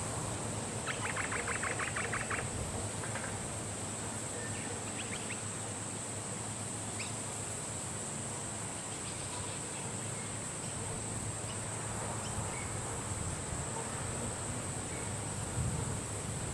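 Outdoor nature ambience: a low wind haze under a steady high insect drone. About a second in a bird gives a rapid trill of about ten quick notes, followed by a few scattered short bird chirps.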